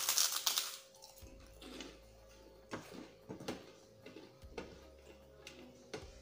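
A loud crunch as a crisp white cracker is bitten off during about the first second, followed by quieter chewing with a run of small wet mouth clicks and soft sounds of fingers picking up rice from a plate.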